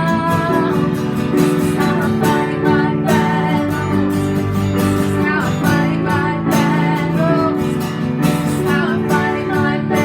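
Music led by an acoustic guitar.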